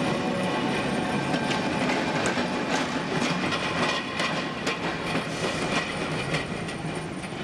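A vintage tram with an open-sided trailer car running on street track: steel wheels rolling and clattering over the rails with irregular clicks, growing fainter in the last few seconds as it moves away.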